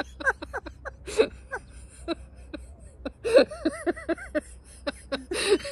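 Two women laughing in short bursts, with breathy gasps between, the laughter picking up again about three seconds in and near the end.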